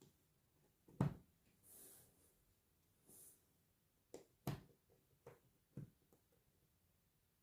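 A few soft knocks and clicks in a quiet room: one sharper knock about a second in, then a cluster of smaller ones a few seconds later.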